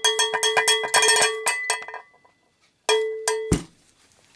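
Cowbell struck in a fast run of strikes that stops about two seconds in, followed by one more ringing strike about three seconds in that cuts off abruptly.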